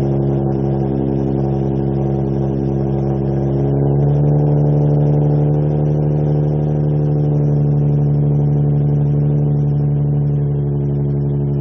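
Nissan 370Z's 3.7-litre V6 running at a steady cold-start idle through a custom 2.5-inch dual exhaust, with a slight change in its note about four seconds in. The phone recording is slightly distorted.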